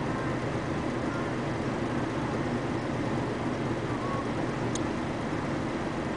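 Heavy diesel engine idling with a steady, even low hum, and one short sharp tick about five seconds in.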